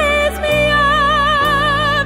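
Slow background music: a melody of long notes held with vibrato over sustained low chords.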